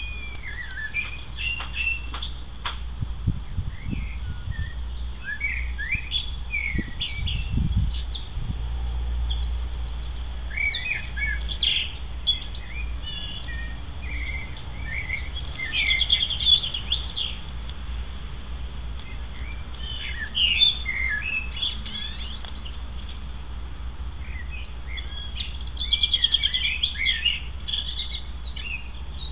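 Several songbirds chirping and singing in bouts, with quick trills and short gliding calls, over a steady low hum.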